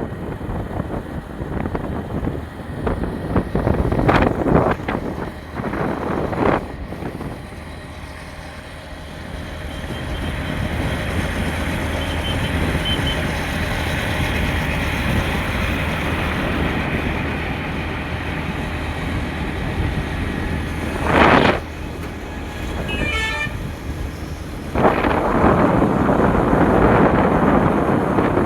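Road traffic with wind buffeting the microphone, with a steady low hum and short horn beeps now and then.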